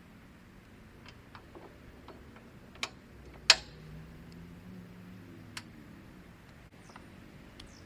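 A few scattered sharp clicks and light knocks, the loudest about three and a half seconds in, another just before it and a smaller one a couple of seconds later.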